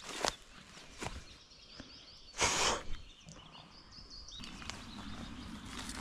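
Footsteps through forest undergrowth: a few short twig-like clicks and one louder rustle of brushed vegetation about two and a half seconds in, with faint birdsong in the background.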